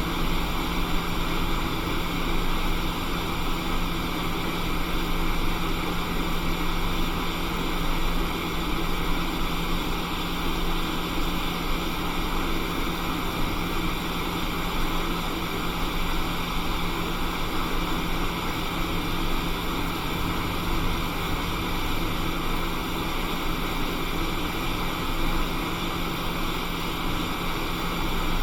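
Steady rushing air from a hot air rework station blowing on the iPhone 6S Tristar chip to reflow its solder, with a low steady hum underneath.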